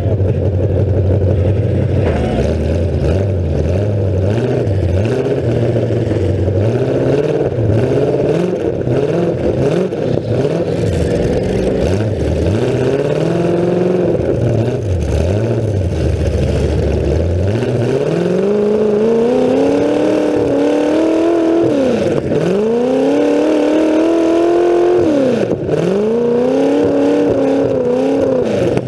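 Demolition derby car's engine barking through open exhaust stacks poking up through the hood, revved up and dropped again over and over as the car accelerates and backs off, with long hard pulls in the second half.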